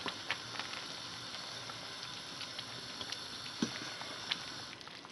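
Solyanka meat soup coming to the boil in a wide pan, a steady bubbling hiss with many small pops, while a spoon stirs it. A single soft knock about three and a half seconds in.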